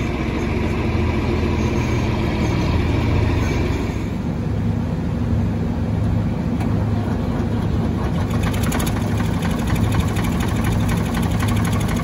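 An engine running steadily. About four seconds in, the sound changes to the diesel engine of a Ford 555 backhoe loader idling with a steady low throb.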